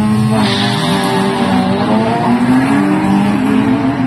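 Two drag-racing cars launching off the start line: engines revving hard, with a burst of tyre squeal about half a second in, then pulling away down the strip under full throttle.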